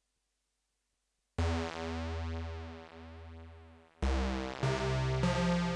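Roland Gaia SH-01 synthesizer playing one of its patches: after a moment of silence a bright sustained chord with a deep bass note starts suddenly about a second and a half in and slowly fades. A second chord strikes at about four seconds, and the notes change twice more before the end.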